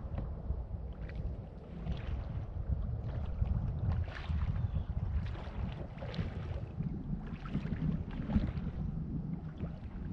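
Wind rumbling on the microphone of a kayak out on open water, with small splashes of water against the kayak about once a second.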